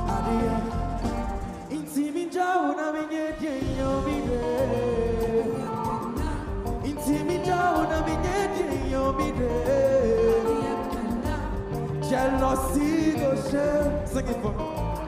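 A song performed live: a male singer over a backing track with bass and beat. The bass and beat drop out briefly about two seconds in, leaving the voice nearly alone.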